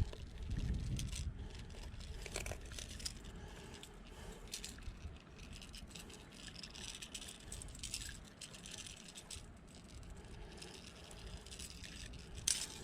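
Faint scattered clicks and light rattling over low wind noise.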